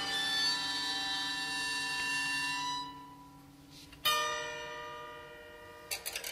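Struck metal ringing like a bell: one tone, already sounding at the start, fades out after about three seconds, and a second sharp strike about four seconds in rings and slowly dies away. Near the end a fast clatter of small metallic taps begins.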